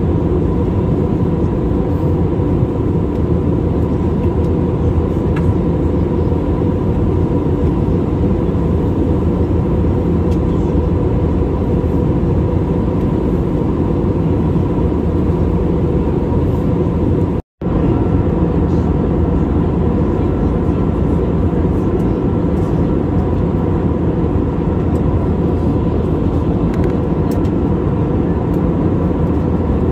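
Airbus A320neo cabin noise heard from a window seat beside the wing in flight: a steady, even rush of airflow and engine noise with a faint steady whine running through it. The sound cuts out completely for a split second a little past halfway, then returns unchanged.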